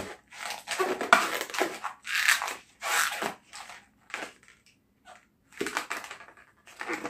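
Latex twisting balloons rubbing and squeaking under the fingers as they are twisted and shaped, in irregular short bursts with brief pauses.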